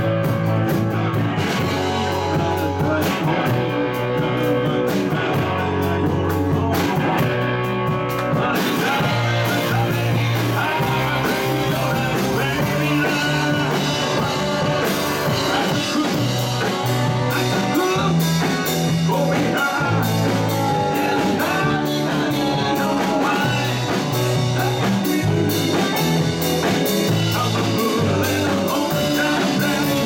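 Live rock band playing a song with a male lead singer: electric guitars, bass, drum kit, congas and keyboards. The music is loud and steady, with a moving bass line.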